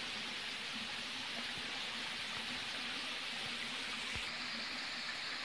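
Steady rush of a waterfall's falling water, its sound shifting slightly about four seconds in.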